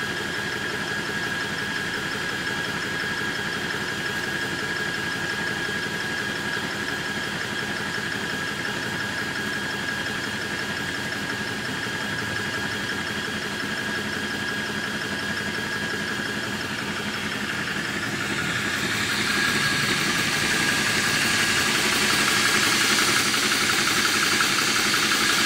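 Apolo 300 bar portable high-pressure air compressor running steadily under load, pumping a PCP air rifle up close to its full fill pressure, with a steady whine over the motor noise. It grows louder and hissier from about eighteen seconds in.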